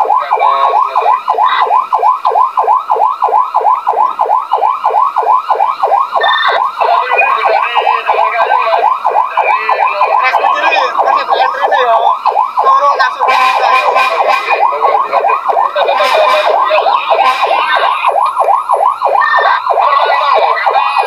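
Fire engine siren sounding a fast yelp, its pitch sweeping up and down about four to five times a second without a break.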